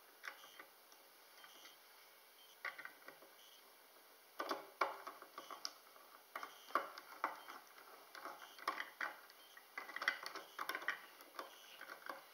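Small Phillips screwdriver turning screws into an aluminium computer case: faint, irregular ticks and scrapes of the driver tip in the screw heads and the metal parts shifting. The clicks are sparse at first and come thick and fast from about four seconds in.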